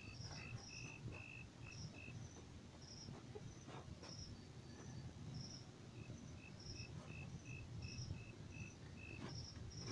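Faint, high, short chirps repeating two or three times a second at two alternating pitches over low background hiss: insects chirping, such as crickets.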